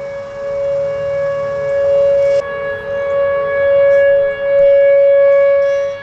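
Outdoor tornado warning siren sounding one steady held tone, swelling and fading in loudness, warning that a tornado warning is in effect.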